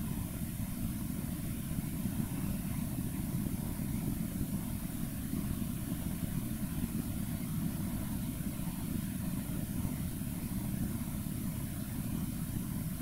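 Steady low rumbling background noise that does not change, with a faint hiss above it and no distinct events.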